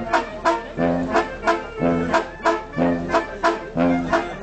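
Banda sinaloense brass band playing live: brass chords and a low bass line over a steady beat of drum and cymbal strokes, about three beats a second.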